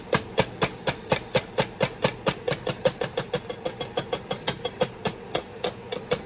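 A utensil beating ground chicken in a stainless steel pot, clacking against the metal in a fast, even rhythm of about five strikes a second.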